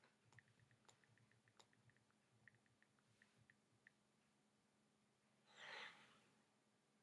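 Near silence: room tone with faint scattered clicks over the first few seconds, then a single soft exhale close to the microphone near the end.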